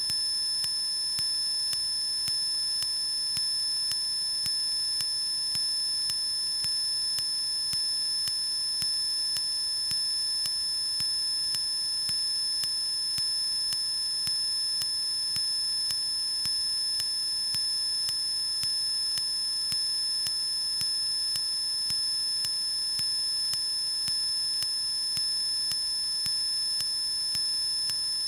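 Steady high-pitched electrical whine made of several fixed tones, with a faint even pulse, in a Cessna 152's in-flight cockpit audio during the climb. There is almost no low engine rumble.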